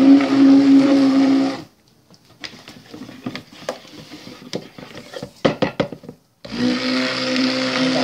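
Stick blender running in a plastic bucket of oils and lye solution, mixing cold-process soap batter. It runs steadily, stops after about a second and a half, and starts again about six and a half seconds in. In between there are a few seconds of irregular clicks and knocks.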